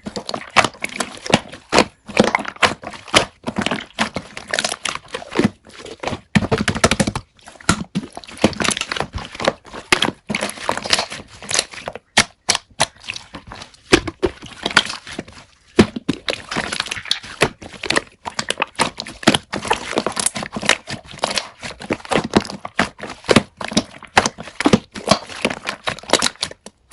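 Slime being squeezed and poked by hand, giving a dense run of sticky clicks, pops and crackles.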